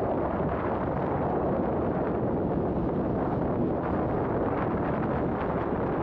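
Wind buffeting the microphone on a ferry's open deck, a steady rushing noise, with a low rumble from the ship underneath.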